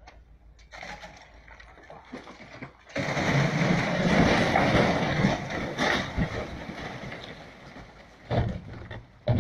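A mass of snow and ice breaks off a roof edge and crashes down onto a canopy below. It starts as a sudden rushing crash about three seconds in and fades over several seconds, and another short crash follows near the end.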